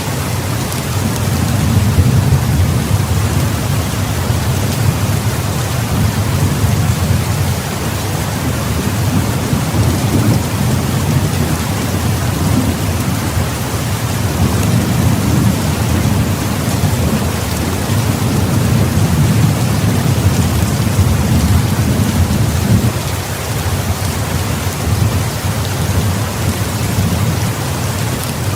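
Heavy rain falling steadily, with a continuous low thunder rumble that swells and eases several times.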